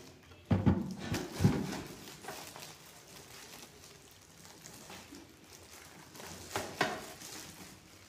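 A cardboard box and a boxed voltage stabilizer being handled, with two knocks in the first second and a half. Then faint rustling of the polythene wrap being pulled off the stabilizer, with a couple of sharper crackles near the end.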